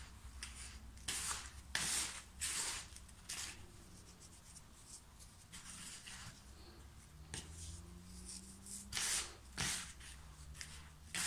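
Hands rubbing and stirring dry, crumbly groundbait of ground corn cake and breadcrumbs in a plastic bowl: a grainy, scratchy rustle in short bursts, quieter for a few seconds in the middle.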